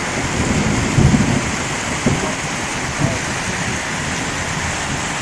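Heavy rain falling steadily, with brief low rumbles about one, two and three seconds in, the loudest at about one second.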